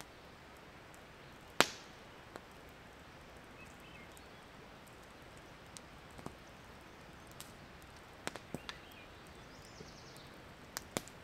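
Wood campfire crackling: scattered sharp pops over a quiet background, the loudest about a second and a half in, with a quick cluster of pops later on.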